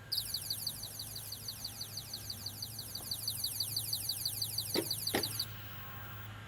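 A rapid, even series of high, falling chirps, about six a second, that starts suddenly and cuts off after about five seconds. Near the end there are two short, lower sounds.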